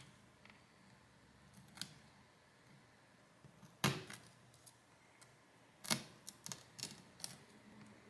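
Sharp small clicks and ticks of a pry tool digging out pieces of broken phone camera glass: a single one early, a louder one about four seconds in, and a quick run of several near the end.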